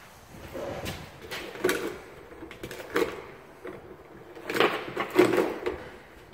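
Irregular clicks, knocks and scrapes of bare copper ground wires and wire-nutted leads being pulled out and handled at an open electrical outlet box, the loudest knocks a little past the middle.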